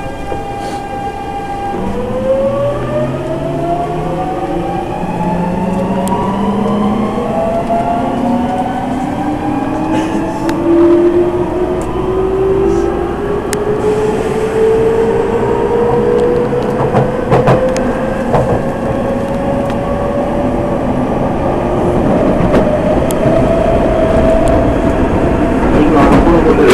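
Nankai electric train picking up speed, heard from inside the carriage. The traction motors' whine, several tones together, rises steadily in pitch for some twenty seconds over the running noise, with a few sharp clicks along the way.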